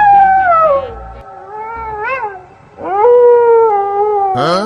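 An animal's high, drawn-out wailing calls: a long one falling in pitch, a short one that rises and falls about two seconds in, then another long one that slowly falls.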